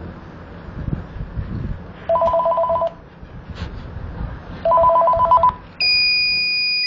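Telephone ringing twice, each ring a rapid warbling trill of two tones. Near the end a steady high-pitched electronic beep begins.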